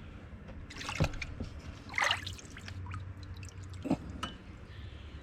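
Evaporust rust-remover liquid dripping and splashing as soaked pipe-wrench parts are lifted and handled in the bath, with a few short splashes or clinks about one, two and four seconds in.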